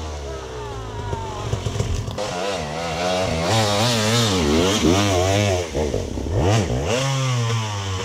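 Dirt bike engine revving in repeated surges, its pitch climbing and dropping every second or so under bursts of throttle.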